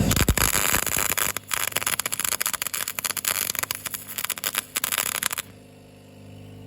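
MIG welder arc crackling for about five seconds, then cutting off abruptly, as a nut is welded onto a bolt. The welder is running with no shielding gas and the wire feed set too low, so it only melts the centre.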